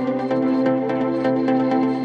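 Instrumental background music with sustained notes and a light beat.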